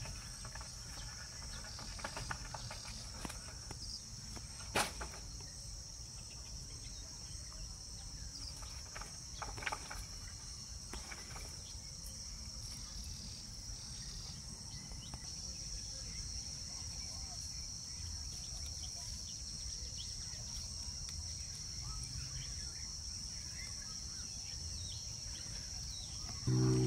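Steady high-pitched insect chorus. A single sharp click comes about five seconds in, with a few fainter clicks near ten seconds.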